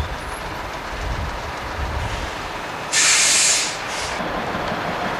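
Double-decker bus diesel engine rumbling at low revs, then about three seconds in a sudden loud hiss of compressed air lasting under a second, with a shorter puff about a second later, typical of a bus's air brakes or air system venting.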